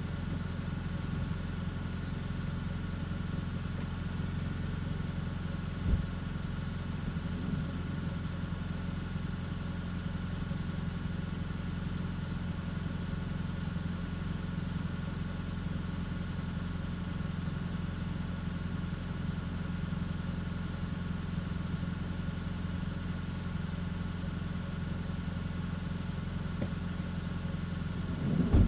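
A steady low mechanical hum with an even, unchanging pitch, like a motor running at idle. A short knock comes about six seconds in and another near the end.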